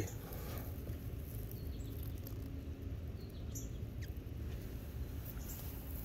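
Outdoor ambience: a steady low rumble of wind on the microphone, with a few brief, faint high chirps or squeaks.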